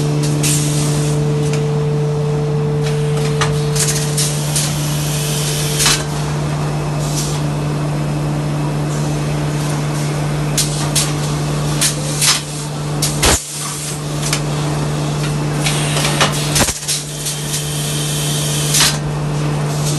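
Kitchen-towel roll packing machine running: a steady motor hum with repeated short hisses of compressed air and sharp clacks from its pneumatic cylinders.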